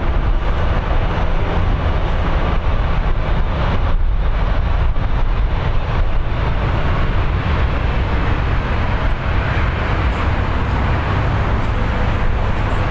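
Steady distant roar of a Boeing 737 MAX 8's CFM LEAP-1B turbofans as the airliner rolls out along the runway after touchdown, heavy in low rumble.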